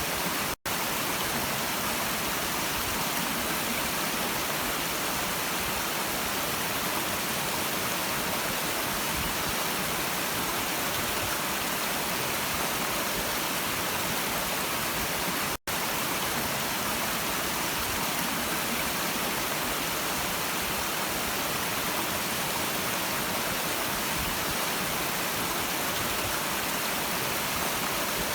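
Steady rushing and babbling of a stream's flowing water, even and unbroken except for two instant dropouts, one about half a second in and one about fifteen seconds in.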